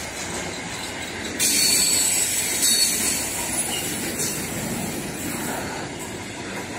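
Container freight train's wagons rolling past at speed, a steady rumble of wheels on the rails. There is a louder stretch of high-pitched wheel squeal from about a second and a half in to about three seconds.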